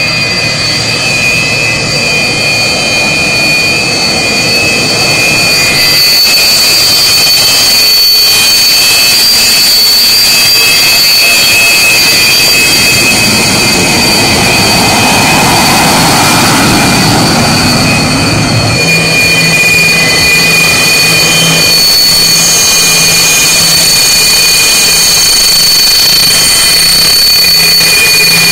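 Sukhoi Su-27 fighters' twin AL-31F turbofan engines running at taxi power as the jets roll past, a loud rush with a steady high-pitched turbine whine. The rush swells in the middle as one jet passes closest, and a steady low hum sets in after it.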